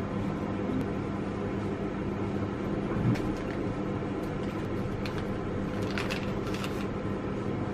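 A steady mechanical hum with a low tone, with a soft knock about three seconds in and a few light clicks or taps later on.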